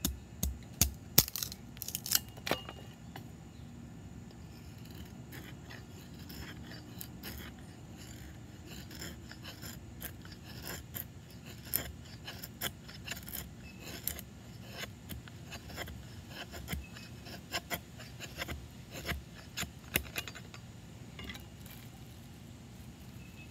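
A steel bowie knife working a stick of resinous fatwood: a few sharp cracks in the first couple of seconds as the wood is split, then many short scraping strokes as the blade shaves thin curls off the wood.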